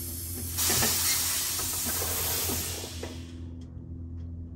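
Air hissing out of a 1959 Cadillac's air suspension as the bags are dumped and the car settles down to the ground. The hiss starts about half a second in and cuts off after about three seconds, over a steady low hum.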